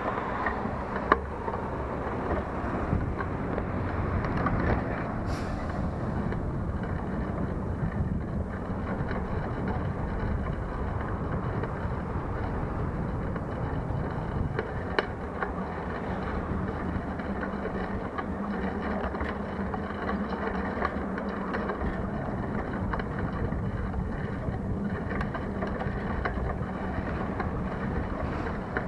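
Steady rumble of wind on a handlebar-mounted camera's microphone as the bicycle rides along, mixed with road traffic passing alongside. A few sharp clicks, about a second in and around the middle.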